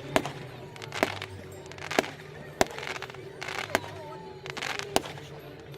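Fireworks going off: a sharp bang about once a second, several of them preceded by a short rushing hiss.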